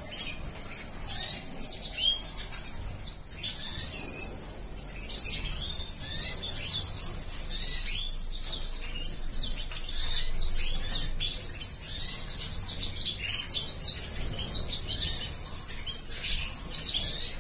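Many small songbirds chirping and twittering, a dense, high-pitched chatter of short calls with no pause.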